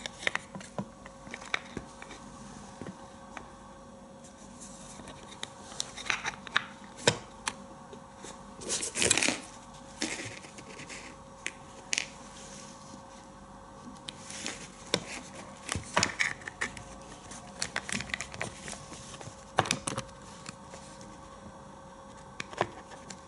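Handling noise from a rifle's bare synthetic stock and loose parts: scattered clicks, taps and rubbing as it is turned over in the hands, with one longer rustle about nine seconds in. A faint steady hum runs underneath.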